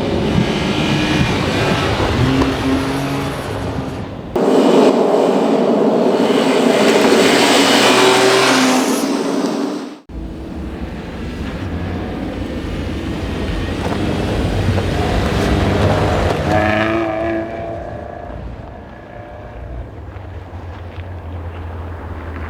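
Rally cars on a snow stage, engines revving high and changing pitch as they pass. The sound changes abruptly about four and ten seconds in as clips are cut together, and the last car is loudest a little past the middle, then fades as it goes away.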